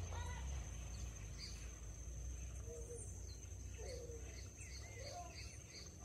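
Several wild birds chirping and whistling in short, scattered calls, over a steady thin high-pitched tone and a faint low rumble.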